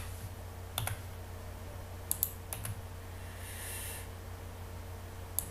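A handful of separate clicks from computer keyboard keys and mouse buttons, spread a second or so apart, over a steady low electrical hum.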